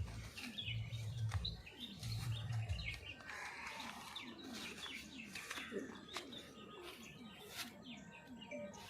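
Birds chirping and calling, with a quick run of short, low, falling calls repeating a few times a second. Three brief low rumbles come in the first three seconds.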